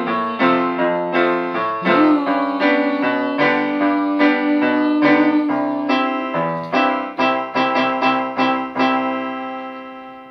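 Electronic keyboard played with both hands, a melody of quickly struck notes. About two seconds in one note bends up in pitch and is held. Fast repeated notes follow, and the playing fades out near the end.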